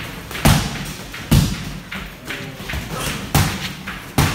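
Padded boxing gloves landing punches in sparring: four sharp thuds at uneven intervals.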